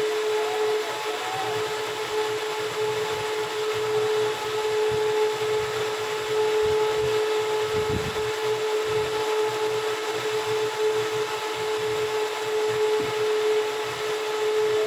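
A machine running steadily: an even whirring noise with a constant mid-pitched hum. There is a faint low knock about halfway through.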